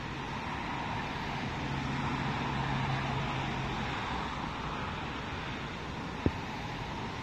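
Steady wind noise on the microphone. A low, even hum joins it from about one and a half seconds in until about four seconds in, and a single sharp click comes about six seconds in.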